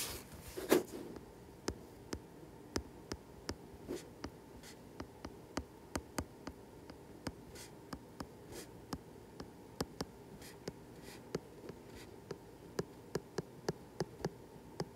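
Stylus tip tapping and sliding on a tablet's glass screen while words are handwritten: a run of sharp, irregular ticks, about one or two a second.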